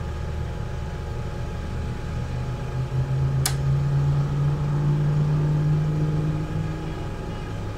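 Champion 3400-watt dual-fuel portable generator engine running with a steady low hum, its pitch rising slightly partway through, with one sharp click about three and a half seconds in.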